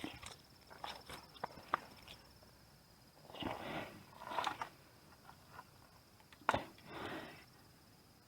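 Scattered knocks and clicks with a few short rustling bursts, one sharp knock about six and a half seconds in, over a faint steady high-pitched tone.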